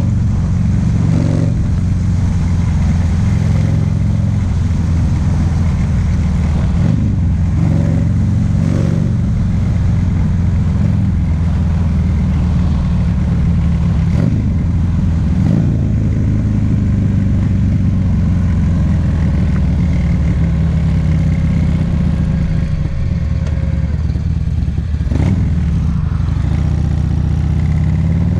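Buell XB12Ss air-cooled V-twin running through a loud Jardine aftermarket exhaust while riding, its note shifting with the throttle; the revs climb near the end.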